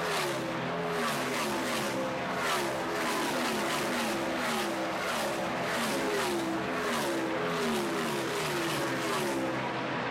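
A pack of NASCAR Sprint Cup stock cars with V8 engines passing one after another at full throttle. Each engine note falls in pitch as its car goes by, and a new car follows about every half second.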